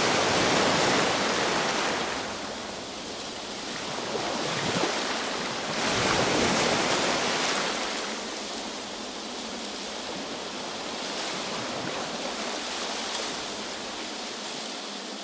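Ocean surf: a continuous rush of breaking waves that swells at the start and again about six seconds in, then settles into a softer steady wash.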